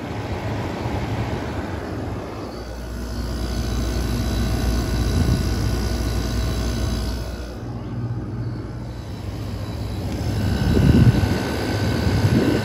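1990 Emerson Quiet Kool window air conditioner with a Matsushita rotary compressor, running, heard close up at the back of the unit: a steady low hum and drone. A few bumps near the end.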